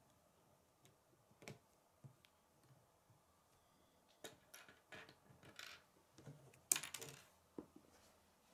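Plastic K'nex rods and connectors clicking and rattling as they are handled and snapped together: scattered light clicks, with a quick run of them in the second half and the loudest click a little before the end.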